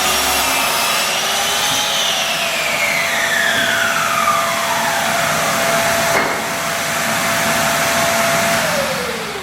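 Electric power tool motors running during cutting of skirting or architrave. One motor whine rises and then falls steadily over several seconds. A second steady motor tone drops away near the end as that tool is switched off and spins down.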